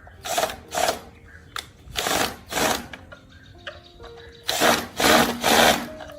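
A tool working in short bursts of harsh noise: two quick bursts near the start, two more about two seconds in, and three in quick succession near the end.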